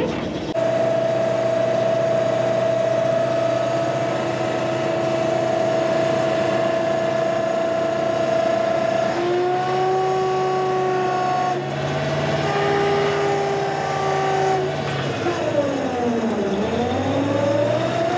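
A heavy engine running at a steady speed. Its pitch steps up about halfway through, then sinks and climbs again near the end as it is throttled down and back up.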